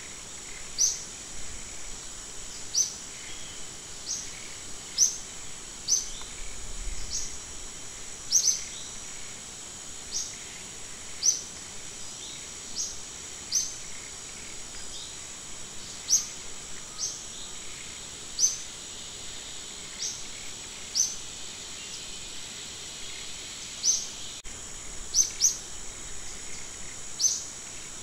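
Steady high-pitched insect drone with a bird's short falling chirps repeating roughly once a second, the chirps the loudest sound.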